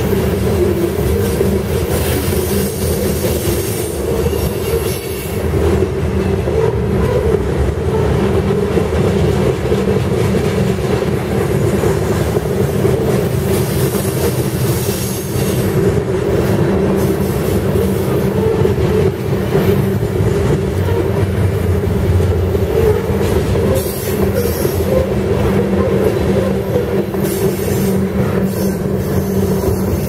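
Freight train of covered hopper cars rolling past, its steel wheels running steadily on the rails.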